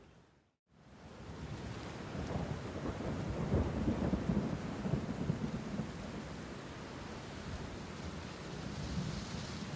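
Thunderstorm: steady rain with a low rolling rumble of thunder that swells and fades in the middle. It fades in after a brief moment of dead silence near the start.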